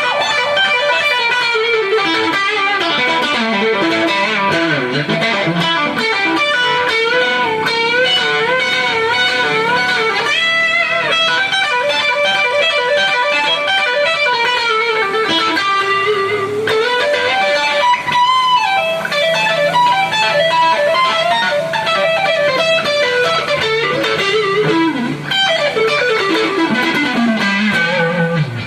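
Electric guitar, a Global Stratocaster-style, played lead as a tone test after a setup. It plays fast descending runs and held notes with wide vibrato, with a long slide down near the end.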